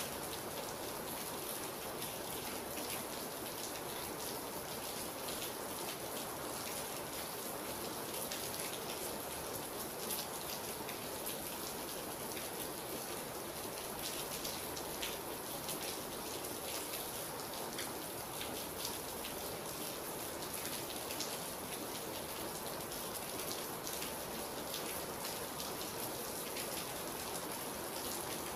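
Steady rain: an even hiss with many small, scattered drop ticks through it.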